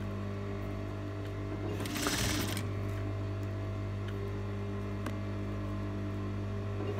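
Industrial sewing machine's motor humming steadily while the machine waits, with a short hiss about two seconds in as the fabric and piping cord are handled at the presser foot.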